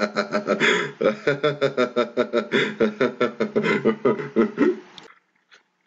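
A man laughing hard: a long run of quick voiced "ha" pulses, about five a second, that dies away about five seconds in.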